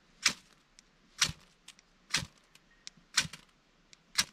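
Ferro rod struck repeatedly with a scraper: five sharp scrapes, about one a second. The strikes do not light the tinder.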